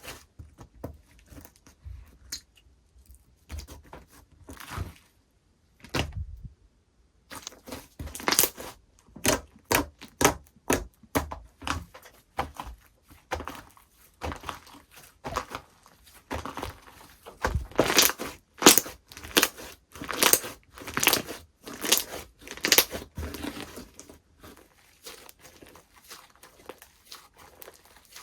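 Slime being squished, stretched and folded by hand, giving irregular crackles, pops and tearing sounds. The sounds are sparse and quiet for the first several seconds, then come thick and louder through the middle.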